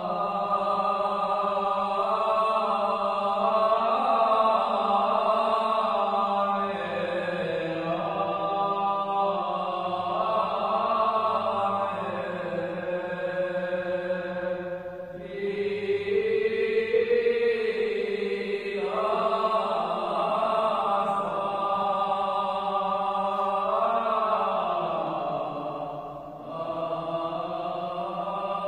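Armenian Apostolic liturgical chant sung by clergy: long held, melismatic notes that step slowly between pitches, with short breaths about halfway through and near the end.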